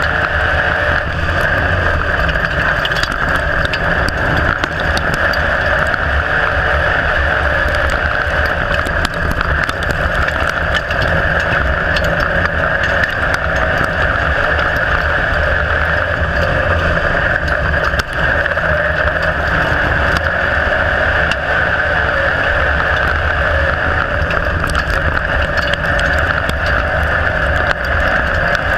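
IMCA Modified dirt-track race car's V8 engine running hard at a steady pitch while racing, heard loud from inside the cockpit.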